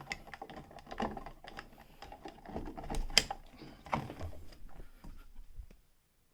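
A light switch and its wires being pushed back into a wall electrical box by hand: irregular small clicks, scrapes and rustling, with one sharper click about three seconds in.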